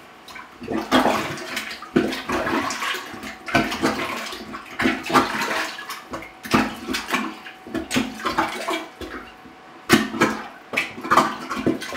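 Rubber plunger pumped up and down in a toilet bowl, water sloshing and gurgling down the drain with each stroke, about one stroke a second. The plunging clears most of the water out of the bowl.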